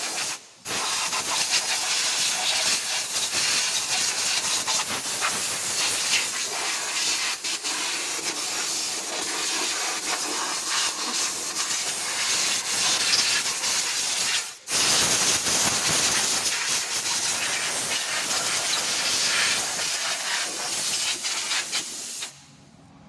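Hand-held compressed-air blow gun hissing steadily as it blows over a truck's diesel engine during engine cleaning. The trigger is let go briefly twice, about half a second in and about fifteen seconds in, and the hiss stops shortly before the end.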